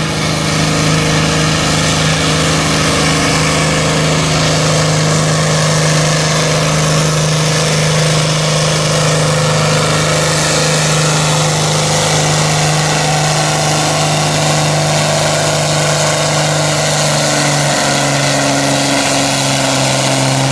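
John Deere tractor's diesel engine running wide open under heavy load as it drags a weight-transfer pulling sled, a loud, steady drone held at one pitch throughout.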